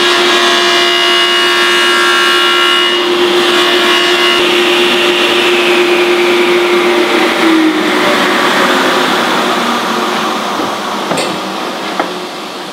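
Table saw running while its blade scoops a groove in a wooden chair-seat blank pushed across it on a sliding jig. After about seven seconds the sound dies away with a falling whine as the blade slows, and a light knock comes near the end.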